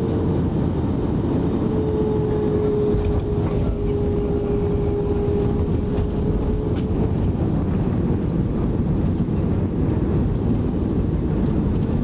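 Cabin noise of an Airbus A320 touching down and rolling out on the runway: a steady, loud rush of engines and airflow, with a deep rumble that grows stronger about three seconds in as the wheels meet the runway and the spoilers rise. A faint steady tone runs under it.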